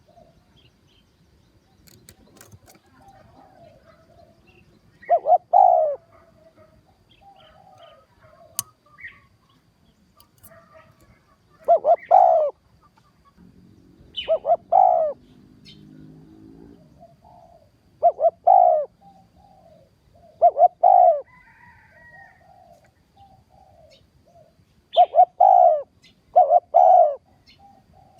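Spotted dove cooing: short phrases of two or three low coos repeated every few seconds, about eight phrases in all, with softer cooing in between.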